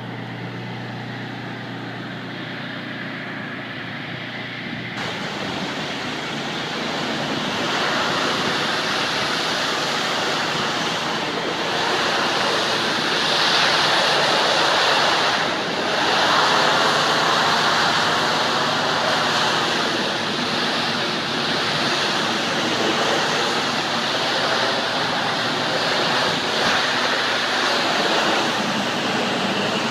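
Pressure washer spraying water, a steady rushing hiss that gets louder about five seconds in and briefly drops off about two-thirds of the way through.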